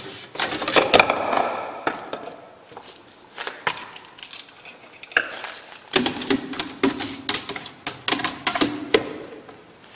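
Plastic handling sounds from a Frog pool purification system's mineral-cartridge chamber: irregular clicks and knocks as its screw cap is worked off and a mineral cartridge is set into the chamber, with a stretch of scraping about six seconds in.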